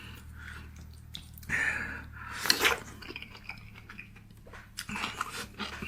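Close-miked eating sounds: a person chewing, with a couple of louder noisy bites about a second and a half and two and a half seconds in, and a few small clicks of dishes or cutlery near the end.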